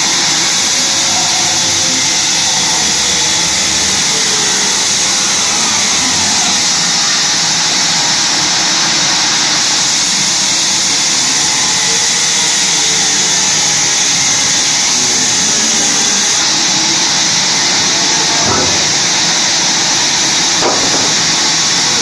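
Sawmill band saw running steadily with a loud, even hiss, with a couple of faint knocks near the end.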